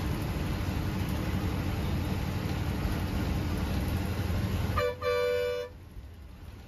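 Steady low rumble of a bus running on the road, then about five seconds in a vehicle horn toots twice, a short blip followed by a longer note. After the horn the rumble drops away.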